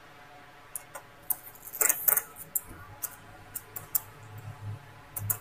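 Scattered small clicks and a short rattle about two seconds in, from a laptop being handled and worked on during disassembly for repair.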